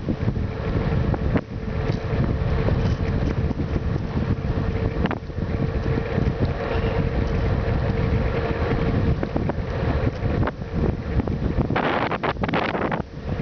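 Strong wind buffeting the microphone while riding into a gusty crosswind: a loud, steady low rumble with a faint steady hum under it, gusting harder near the end.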